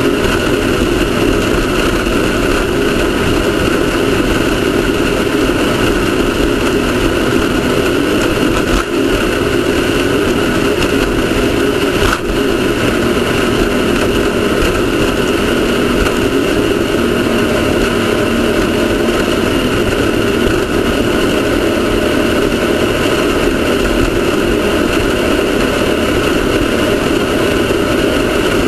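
Off-road race car engine running steadily under way, with a single sharp knock about twelve seconds in.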